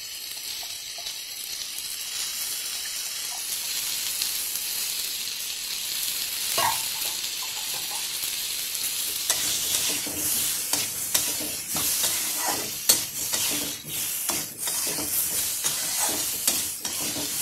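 Pumpkin chunks frying in oil with turmeric and chilli powder in a non-stick wok, sizzling steadily. A metal spatula scrapes and taps against the pan as they are stirred, the strokes coming thick and fast from about halfway through.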